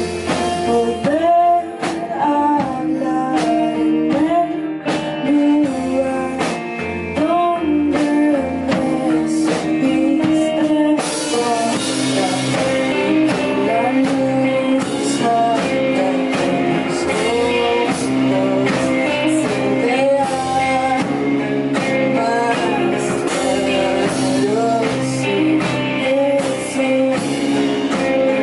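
A rock-style song with a sung melody over guitar and drums. The arrangement gets fuller and brighter about eleven seconds in.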